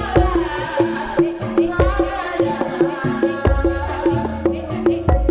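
Live Banyumasan lengger accompaniment: an ensemble playing a steady pattern of short struck notes, several a second, with deep kendang drum strokes and a female sinden singing over it.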